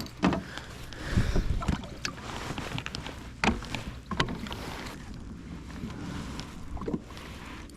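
Water sloshing around a kayak, with wind on the microphone and a few light knocks scattered through.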